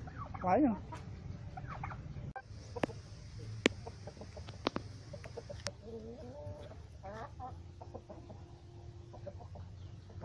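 Domestic fowl, turkeys and a chicken, giving short calls, once at the start and again about six to seven seconds in. In the middle come a few sharp clicks and a high hiss.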